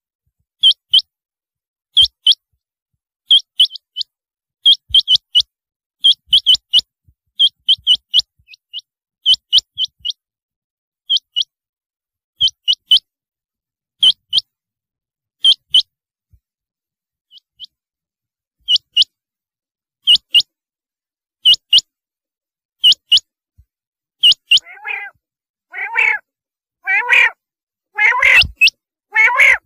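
Rain quail calling: short, sharp, high notes in quick pairs and triplets, repeated every second or so. Near the end a lower, rougher call takes over, repeated about once a second.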